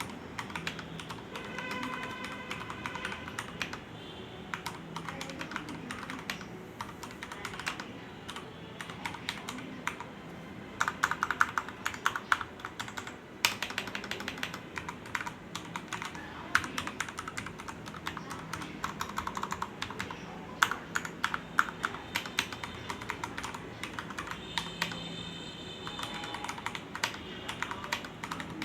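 Typing on a Keychron K10 full-size wireless mechanical keyboard with brown switches: a continuous run of keystroke clacks, with louder, harder strokes around eleven and twenty seconds in.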